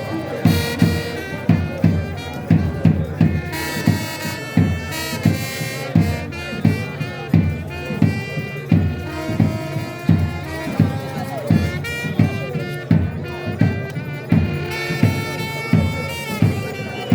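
Music with a fast, steady drum beat and a held, high melodic line over it.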